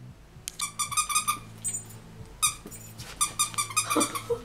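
Squeaky plush dog toy being squeezed in quick runs of high squeaks, several a second, in three short bursts.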